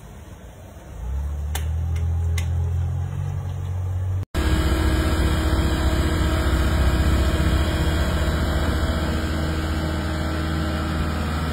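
An engine running steadily with a low drone that comes in about a second in, broken once by a brief cut.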